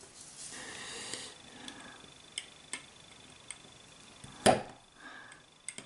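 Small, hard-object handling at a close-up work surface: a scalpel and a SIM card being picked up and moved, giving scattered light clicks and one louder knock about four and a half seconds in.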